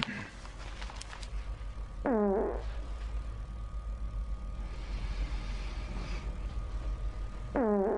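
Two fart sounds, each falling in pitch and lasting about half a second, the first about two seconds in and the second near the end, over a steady low hum.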